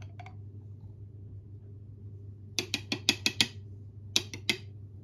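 Metal teaspoon clinking against a ceramic bowl: a quick run of about seven clinks around the middle, then two more near the end, over a faint steady hum.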